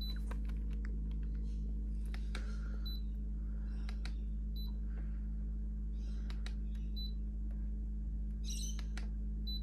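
Clicks of remote-control buttons, with short high beeps from a Daikin FTXM25QVMA split-system air conditioner accepting each command as the temperature setting is stepped back up. There are about five beeps, a couple of seconds apart, over the steady low hum of the running unit.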